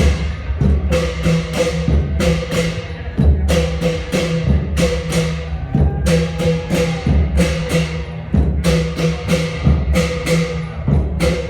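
Thai klong yao long-drum ensemble playing a traditional rhythm: deep drum beats with sharp cymbal strikes on a steady, even pulse.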